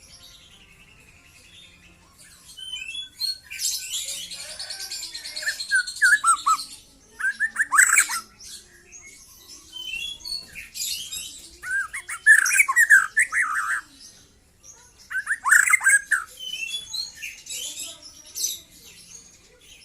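Young white-rumped shama singing in separate phrases: clusters of loud, downward-sliding whistled notes, with a long harsh, rasping chatter a few seconds in and short pauses between phrases.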